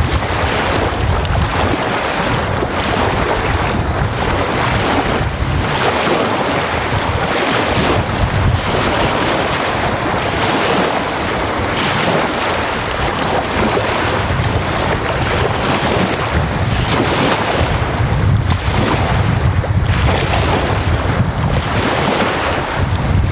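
Small wind-driven waves breaking and washing up a sandy lake shore, swelling and ebbing every few seconds. Gusts of wind rumble on the microphone, strongest near the end.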